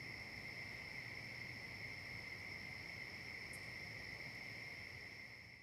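Faint steady high-pitched whine made of two unbroken tones over a light hiss and low hum, fading out near the end.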